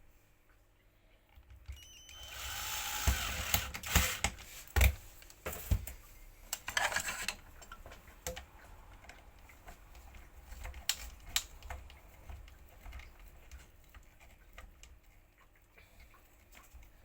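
Hard parts and hand tools being handled during reassembly of an industrial vacuum cleaner: a few sharp knocks and two short rattling, scraping stretches in the first half, then scattered light clicks.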